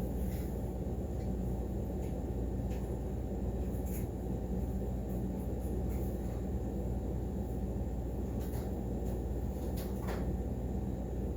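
Steady low background hum with a few faint small clicks scattered through it.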